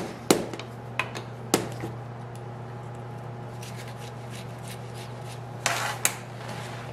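Hand tools and small steel parts clicking and clinking on a sheet-metal workbench while an engine oil pump is taken apart: three sharp clicks in the first second and a half, then a short scrape and a click near the end, over a steady low hum.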